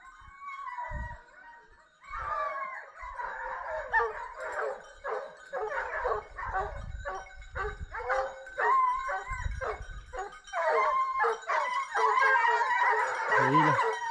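A pack of hunting dogs baying and howling in chorus as they give tongue on the trail of a wild boar. The calls come thick and repeated from about two seconds in and grow louder and busier near the end.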